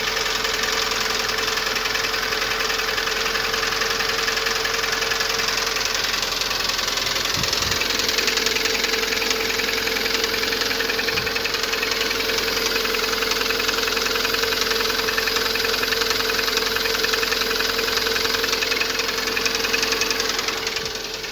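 Lada Priora four-cylinder engine running at idle with a steady, fast knocking from the top of the engine. New hydraulic lifters have not cured the knock, and the owner suspects a worn camshaft rather than the pistons.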